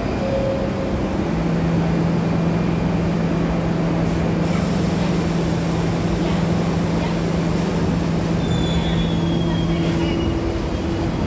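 New York City subway R62 train standing at the platform with a steady electrical hum over loud station rumble. Its doors shut with a clunk about four seconds in, and near the end the hum shifts higher as the train gets ready to pull out.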